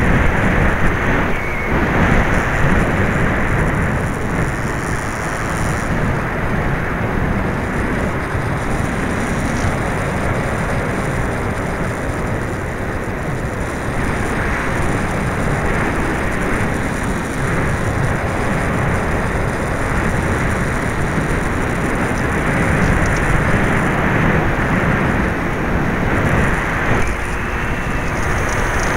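Steady rush of wind and airflow over the microphone of an FPV-Raptor 1600 RC plane's onboard camera in flight, swelling and easing with the gusts.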